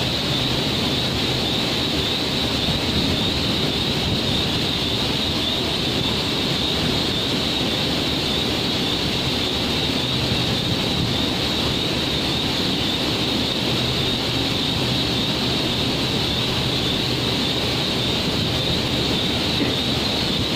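Steady machinery noise on a factory floor: an even hiss with a low hum beneath it, constant in level.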